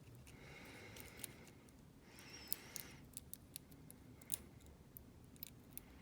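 Faint small clicks and light scraping of a small pin tumbler cabinet lock's parts being handled and fitted back together.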